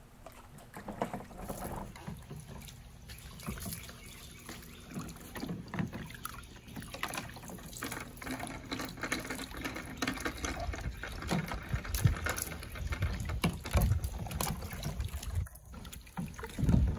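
Water splashing, trickling and being poured in a plastic toy water table as small cups scoop and tip it, with many small splashes and knocks.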